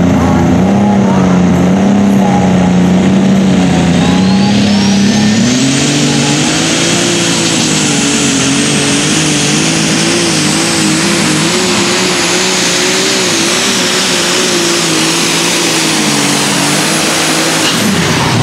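A John Deere 7280 light super stock pulling tractor's turbocharged engine runs steadily at the line, then opens up for a full pull. About four seconds in, a high turbo whine climbs sharply and holds, while the engine note rises and wavers under load. Near the end both fall away as the engine is shut down.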